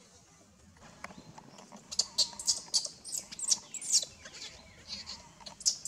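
Baby macaque giving a rapid string of high-pitched distress squeals, starting about two seconds in and lasting about two seconds, with one more squeal near the end.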